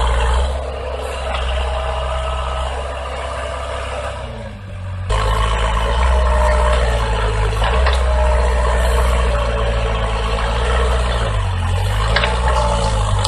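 Heavy truck or machine engine running steadily with a low drone. It cuts off abruptly about five seconds in and starts again at once, and its pitch dips briefly near the end.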